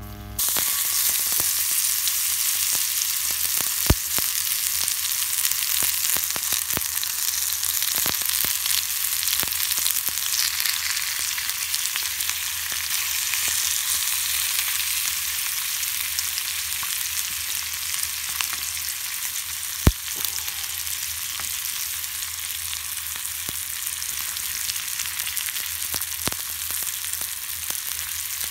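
Bacon and sliced ham sizzling in a hot cast-iron skillet, a steady frying hiss that starts almost at once, with two sharp pops, one about four seconds in and one about twenty seconds in.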